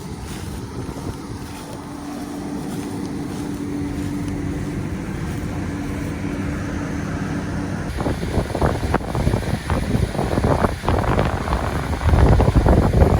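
Heavy vehicle engine running with a steady hum, growing louder over the first several seconds. From about eight seconds in, wind buffets the microphone, heaviest near the end.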